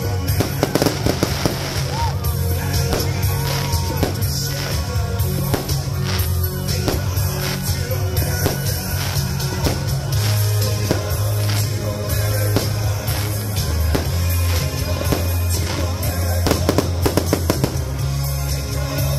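Music with a steady bass line, with aerial firework shells going off over it: repeated launches, bangs and crackling bursts.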